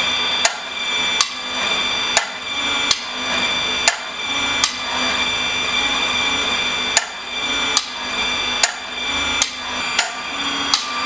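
Power Team hydraulic pump running steadily as it drives a ProTorc low-clearance hydraulic torque wrench, with sharp clicks in pairs roughly every second and a half as the wrench cycles through its strokes; the clicks pause for a couple of seconds midway.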